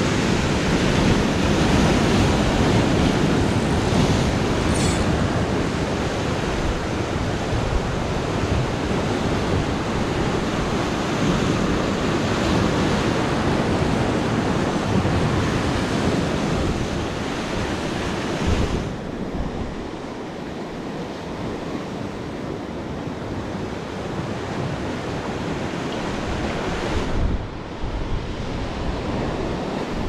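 Ocean surf breaking and washing over the rocks below, with wind on the microphone. The rushing is heavier at first and eases noticeably about two-thirds of the way through.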